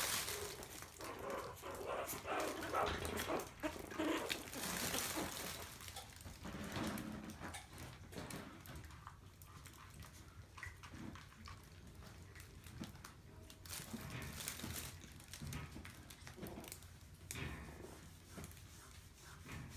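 Maltese puppies playing, with small yips and whimpers over the scuffle of paws and a fabric play tunnel; it is busiest in the first six seconds, then thins out to occasional sounds.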